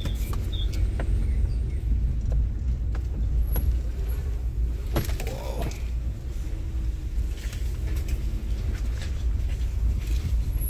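Inside a car moving slowly over a rough dirt track: a steady low rumble of engine and tyres, broken by scattered knocks as the car bumps over ruts.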